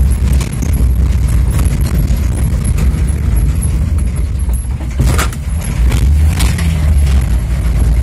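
Car driving over a dirt road, heard from inside the cabin: a steady low rumble of engine and tyres, with a few sharp rattles and knocks from the body over bumps, a couple about five and six and a half seconds in.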